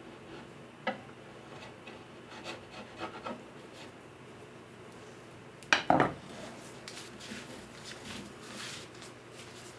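Hand work on a guitar at a luthier's bench: a few light wooden taps and knocks, a sharp clatter of a tool or part set down about six seconds in, then soft rubbing and scraping.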